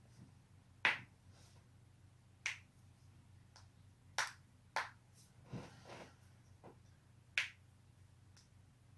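Human joints cracking: about five sharp pops spread over several seconds, the loudest about a second in and near the end, with a few fainter cracks in between.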